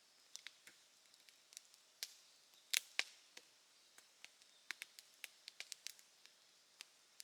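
Campfire crackling: irregular sharp pops and snaps, the two loudest about a quarter second apart a little under three seconds in, with a quick flurry of small snaps near the end.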